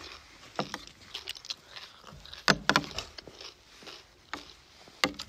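Metal fork and spoon clicking and scraping against a plastic food tray while someone chews crunchy salad, in a string of separate sharp clicks, loudest about two and a half seconds in.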